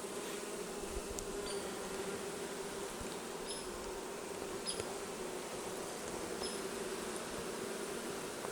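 Honeybees buzzing steadily around an open hive, an even low hum.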